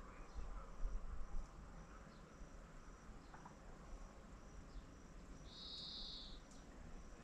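Insects chirping in wetland reeds: a faint high chirp repeated about twice a second, with a louder buzzing trill about five and a half seconds in that lasts about a second.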